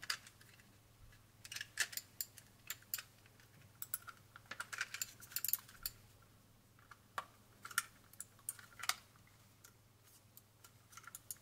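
Light plastic clicks and taps from handling a Roccat Kone Aimo Remastered gaming mouse as its body shell is pressed together, scattered and irregular in small clusters.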